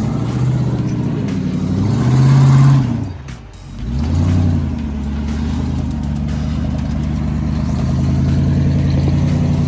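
Off-road Jeep's engine revving up and easing off twice in the first few seconds, then running at a steady pitch.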